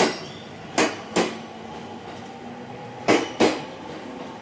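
Aoimori Railway 701 series electric train pulling out, its wheels clacking over a rail joint as each bogie passes: sharp clacks in pairs, one at the start, a pair about a second in and another about three seconds in, over a steady low running hum.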